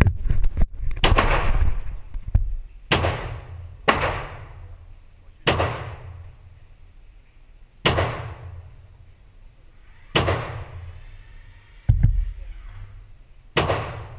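AR-15 rifle firing single shots, about ten in all, spaced one to two and a half seconds apart, each sharp crack ringing off the walls of an indoor range booth.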